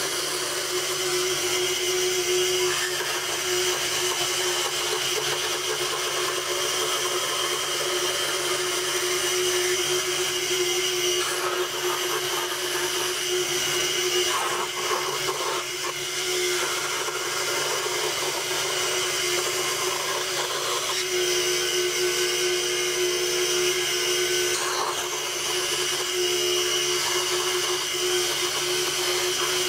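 Scroll saw running steadily with a constant hum, its blade cutting a pattern in thin plywood.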